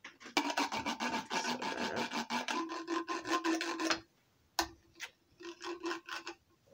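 Rapid, dense rasping scratches with a steady tone under them. They stop about four seconds in, and a shorter run of them comes near the end.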